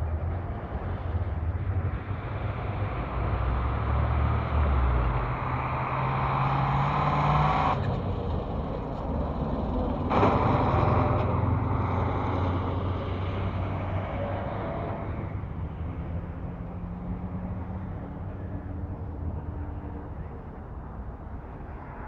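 Road traffic: cars and trucks driving past, with a low engine hum over tyre noise. The sound changes abruptly twice, about eight and ten seconds in.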